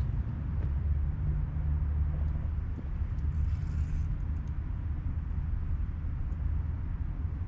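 Low steady outdoor rumble, with a brief hiss about three and a half seconds in.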